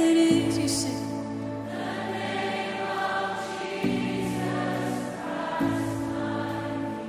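Live worship music: a band holding slow sustained chords that change a few times, with many voices singing together over them.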